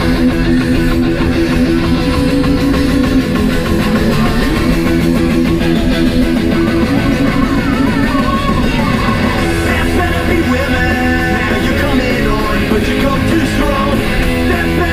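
Rock song playing loud and steady: guitar-driven band music with a constant beat and no break.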